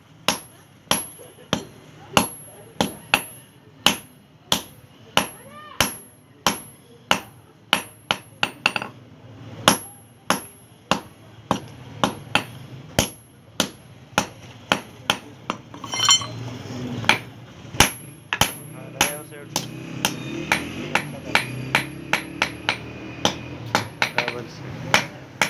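Hand hammer forging iron on an anvil, striking in a steady rhythm of about two blows a second.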